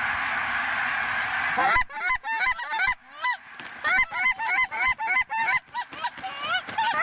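A large flock of geese calling: a dense, even wash of massed calls, then, from about two seconds in, many loud, close, overlapping honks and clucks.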